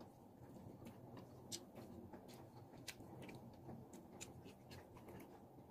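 Near silence, with faint scattered small clicks and smacks of a person chewing and eating food by hand.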